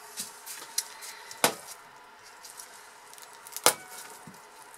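Two sharp knocks about two seconds apart, with lighter taps between, from a wood-and-plastic soap cutter as a bar is cut from a cold-process soap log and handled.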